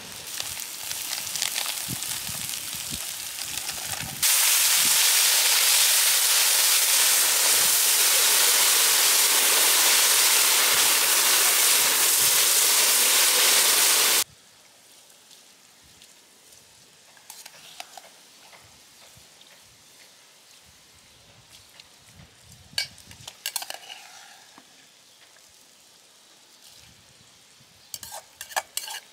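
Food frying in oil in a kazan for plov. At first a crackly sizzle, then a loud steady sizzle for about ten seconds that cuts off suddenly. After that come quieter scattered clinks, and near the end a quick run of utensil clinks and scrapes against the pot as it is stirred.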